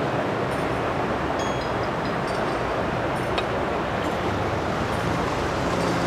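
Shallow mountain stream rushing over rocks and small rapids: a steady hiss and splash of running water.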